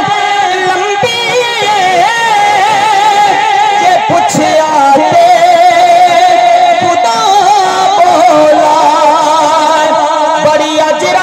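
A man singing a Punjabi naat into a microphone through a PA loudspeaker, drawing out long, wavering held notes with ornamented turns and no words broken out.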